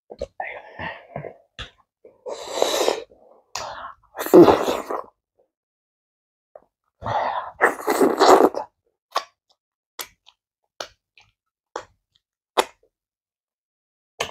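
Close-miked eating sounds from someone eating amala and egusi soup by hand: several loud, wet sucking and breathy mouth bursts as food and fingers go to the mouth, the loudest about four seconds in, then a string of sharp lip smacks about once a second while chewing.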